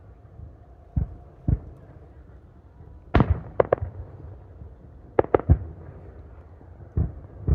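Fireworks going off in a series of sharp bangs as aerial shells burst. Single bangs come early, then two quick groups of three, then more single bangs near the end.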